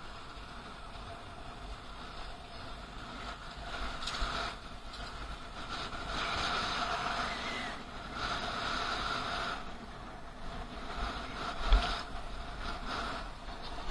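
Ride noise from a camera mounted on a moving bicycle: wind buffeting the microphone and tyres humming on the road, with traffic nearby, swelling and fading several times. A single knock about twelve seconds in, like the bike hitting a bump.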